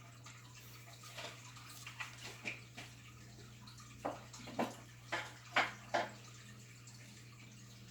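Ranchu goldfish gulping food at the water surface, making small wet plops and smacks. About six sharper ones come close together in the middle, over a steady low hum.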